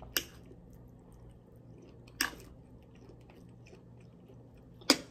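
Chewing food with the mouth close to the microphone, with three short clinks of a metal fork against a plate, the loudest near the end.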